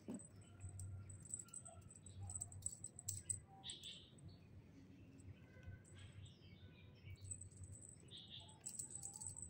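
Faint light clicking and tapping as a kitten bats at a hanging beaded toy and scrambles on a sisal scratching post, with a few short bird chirps in the background.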